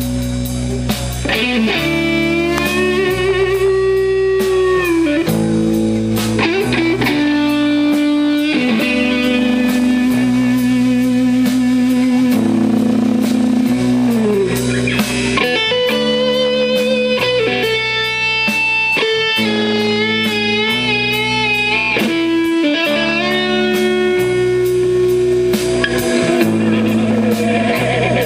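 Live rock band playing an instrumental passage: electric guitar, bass and drum kit. Over the bass line and the beat, a lead line holds long notes that bend up and down with vibrato.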